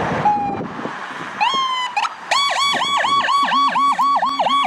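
Electronic ambulance siren. After a short hiss, a rising tone starts about a second and a half in, then the siren goes into a fast yelp of about four cycles a second, with a second, lower siren tone joining near the end.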